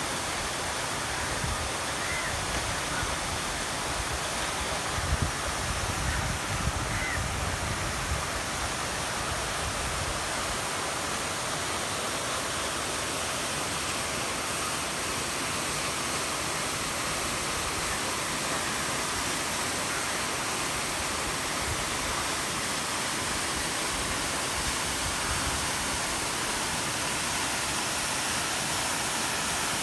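Steady rush of water flowing over rocks in a clear mountain stream, with some low rumbling in the first eight seconds.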